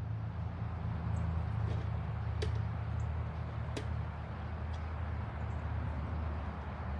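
Outdoor ambience in bare woods: a steady low rumble with a hiss over it, two sharp clicks about a second and a half apart, and a few faint high chirps.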